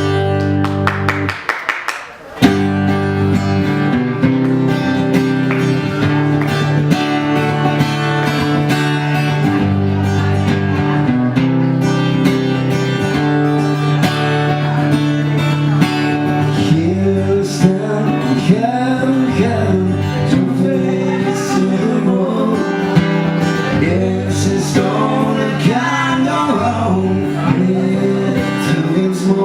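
Live acoustic band music: strummed acoustic guitar chords with a melody line over them. There is a brief break about two seconds in, then the music carries on steadily.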